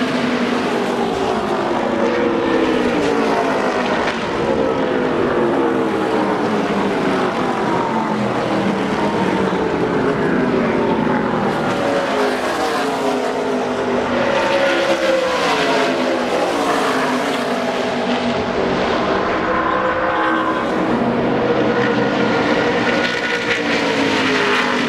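ARCA stock cars' V8 engines at racing speed, one car after another passing with several engine notes overlapping. Each note bends up and then falls in pitch as the car goes by.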